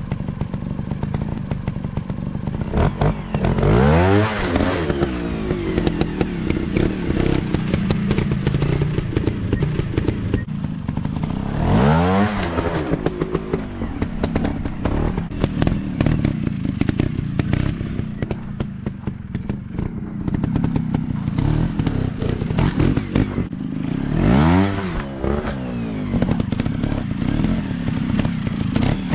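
Dirt bike engines running off-road, revving up and dropping back sharply four times over a steady engine drone. Knocks and clatter run throughout.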